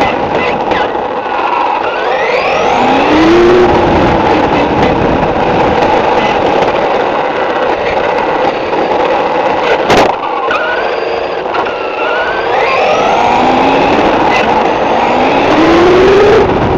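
Onboard sound of a radio-controlled buggy running fast on an asphalt road: a steady noisy rush with the motor's whine rising in pitch as it speeds up, once a couple of seconds in and again from about two-thirds through. A single sharp click comes about ten seconds in.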